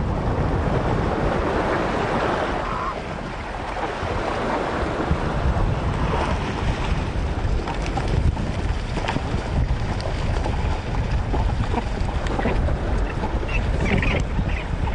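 Surf washing against a rocky shore, with wind buffeting the microphone. Splashing in the first few seconds as Snares penguins come in through the water, and a few short penguin calls near the end.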